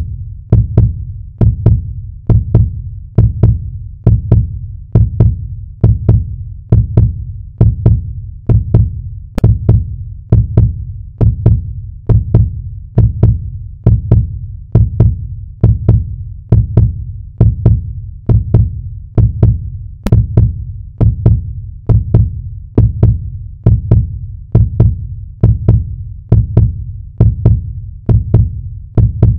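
Heartbeat sound effect: a steady, even run of low lub-dub thumps, repeating at a regular pace.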